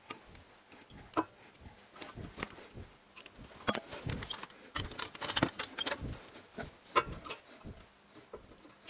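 Irregular small metallic clicks and taps of a new front brake pad and its anti-squeal shim being handled and fitted into the caliper bracket, busiest in the middle.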